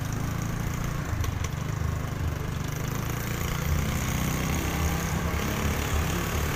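Motorcycle heard from the saddle while riding: a steady low engine rumble mixed with road and wind noise.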